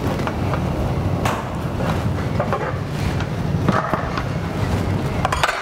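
Kitchen utensil clatter: several light clinks and knocks of metal utensils and the steamer pot's metal lid, over a steady low rumble from the stove and steamer.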